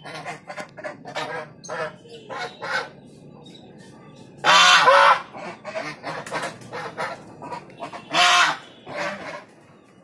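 A flock of domestic geese honking: a run of short honks, then two long, loud honks about four and a half and eight seconds in, with more short calls around them.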